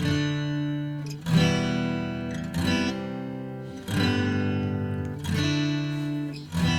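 Acoustic guitar chords strummed about every second and a half, each one left to ring and fade before the next.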